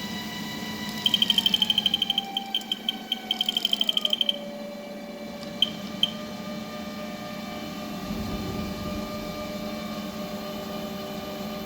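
Rapid electronic beeping from the Haas ST-20 CNC lathe's control, about ten beeps a second in two runs, then two single beeps. Under it the machine's steady whine slides down in pitch and settles into a steady hum.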